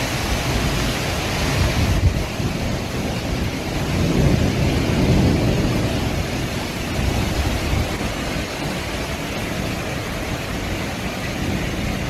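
Storm wind and heavy rain: a steady, dense rushing noise with a heavy low rumble, swelling a little about four to five seconds in.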